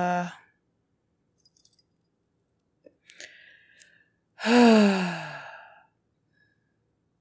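A woman's long audible sigh about four and a half seconds in, breathy and falling in pitch as it fades. Just after the start, a held steady vocal note cuts off, and a few faint clicks come in between.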